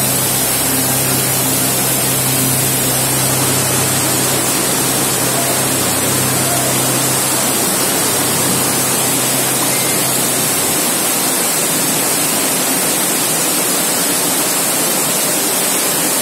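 Loud, steady rush of water in heavy rain, an even hiss with no breaks. A low hum under it stops about ten seconds in.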